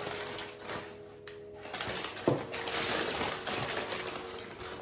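Packing paper rustling and crinkling in bursts as a ceramic saucer is unwrapped by hand, with one sharp knock about two seconds in.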